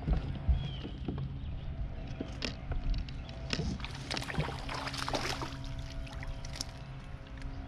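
A small fish being hooked and reeled to a bass boat: a low thump at the hookset, then the fish splashing at the surface about four to five and a half seconds in, over a steady low hum.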